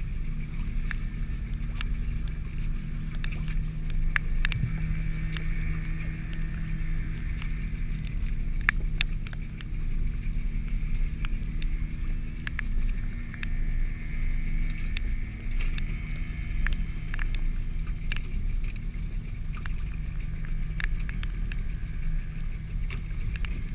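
Boat engine running steadily at low revs, with scattered sharp ticks and clicks over it.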